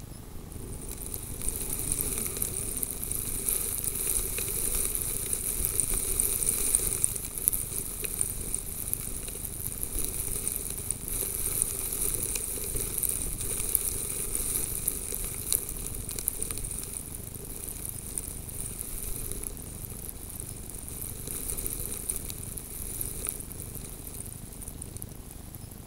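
Fine snow blowing over a camera lying in the snow, a hissing with light pattering and crackling on the microphone. It swells about a second in and slowly eases over the rest.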